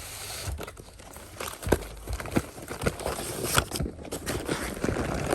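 Handling noise: irregular knocks, taps and rustling as a boxed firework cake is picked up and moved about, with the sharpest knock about a second and a half in.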